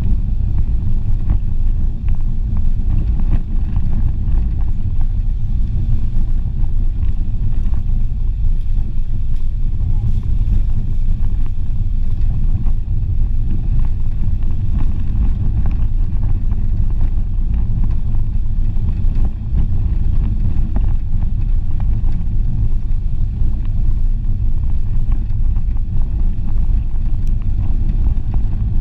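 Renault Clio driving along a rough dirt and gravel road: a steady, loud low rumble of engine, tyres and suspension.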